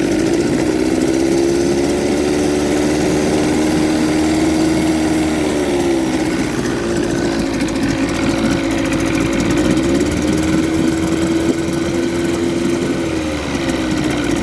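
1978 Evinrude 35 hp short-shaft two-stroke outboard running in neutral with the throttle opened. It revs up, drops back about six seconds in, revs up again at about ten seconds and falls back near the end. In neutral the throttle is limited, so it only revs so far.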